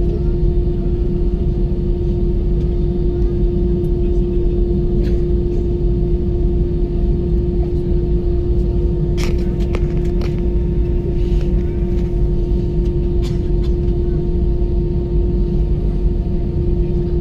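Airbus A320 cabin noise while taxiing: the engines' steady drone and low rumble with a constant hum, and a few short sharp clicks or knocks about halfway through.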